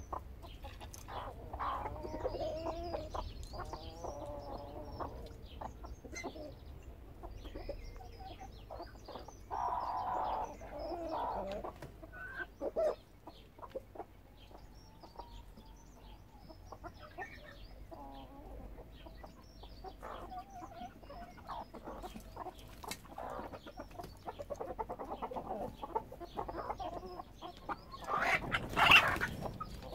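Flock of hens and roosters clucking and calling in short, irregular calls, with one loud, sharp outburst about two seconds before the end.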